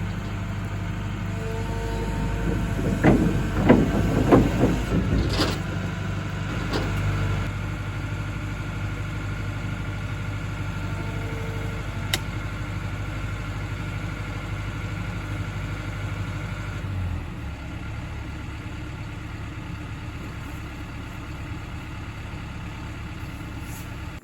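Cat 313 excavator's diesel engine running steadily, with a quick series of metallic clanks and knocks a few seconds in. The engine note drops lower about two-thirds of the way through.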